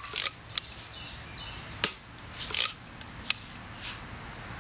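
Daisy Red Ryder spring-powered BB gun being fired and lever-cocked in quick succession: one sharp shot crack a little under two seconds in, with short noisy clacks of the cocking lever just before and after it and a few lighter ticks between.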